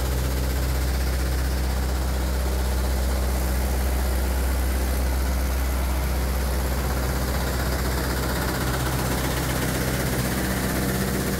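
Deutz diesel engine of a Keestrack Novum mobile screening plant running at a steady speed: a constant low hum with a steady mechanical noise over it, unchanging throughout.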